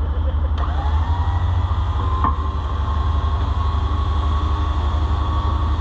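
Vehicle-mounted winch reeling its cable in. The winch motor whines, rising about half a second in and then holding steady, over the low rumble of an idling truck engine.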